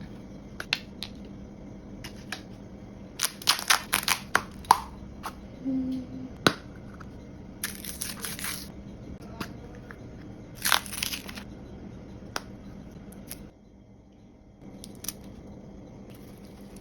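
Surprise-toy packaging being torn open and handled: wrapping crinkles and tears in short bursts, with scattered clicks and taps.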